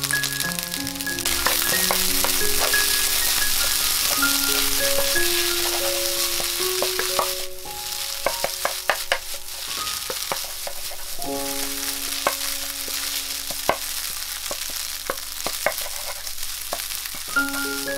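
Rice and egg sizzling in a hot frying pan while a wooden spatula stirs it. The sizzle is loudest in the first half and drops about seven seconds in, after which the spatula's sharp knocks and scrapes against the pan stand out. Soft background music with long held notes plays underneath.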